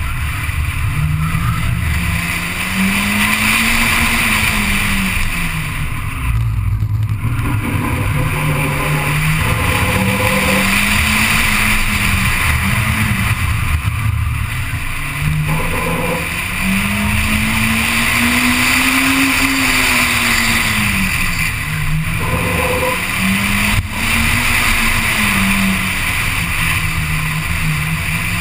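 Onboard race car engine, a Honda Civic, running hard through a slalom course: the engine note climbs and falls again and again as the car accelerates and brakes, with steady wind and road noise throughout.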